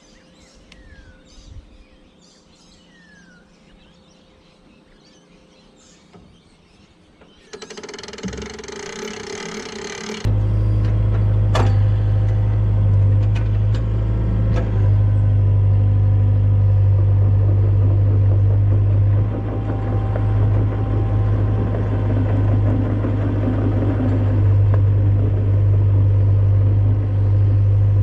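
Faint bird chirps, then a hiss from about seven seconds in; from about ten seconds a heavy engine runs steadily with a loud low drone.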